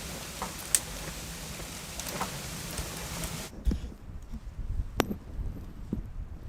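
An even, rain-like patter with scattered sharp ticks stops abruptly about three and a half seconds in. A few low thumps and one sharp click follow.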